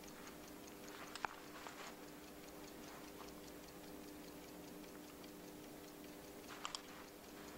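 Clock ticking quickly and faintly, about four ticks a second, over a faint steady hum. A louder click comes about a second in, and a quick double click near the end.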